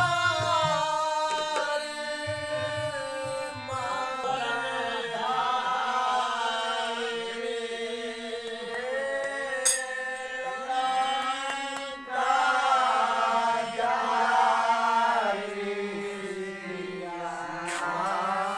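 Music: a held, chant-like singing voice over a steady drone, with some hand-drum beats near the start.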